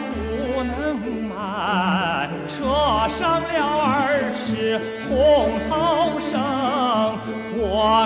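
Background music: a song with a singer holding notes with wide vibrato over a steady low bass line.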